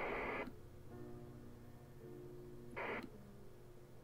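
CB radio hiss that cuts off sharply about half a second in, followed by a short burst of hiss near three seconds in. Faint background music with held tones plays underneath.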